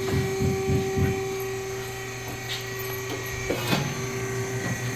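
Truck tire changer's motor running with a steady, even hum that stops near the end, with a few low thumps in the first second and sharp knocks about three and a half seconds in.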